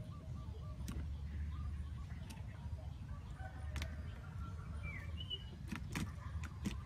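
A few short, faint chirps of small birds, with several sharp clicks scattered through and a steady low rumble underneath.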